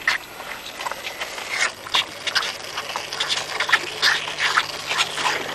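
Calves sucking on large milk bottles held over a fence rail, in short irregular pulls.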